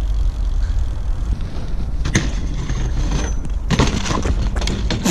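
Steady low rumble of a BMX bike rolling on asphalt. About four seconds in there is a clatter of knocks as the rider falls forward off the bike and hits the ground.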